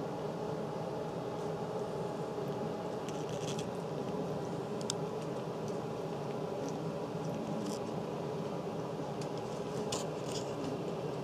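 Steady room hum, with a few faint soft clicks and smacks scattered through from Japanese Chin puppies suckling at their mother's teats.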